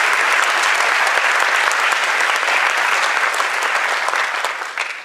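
Audience applauding, dense steady clapping that dies away near the end.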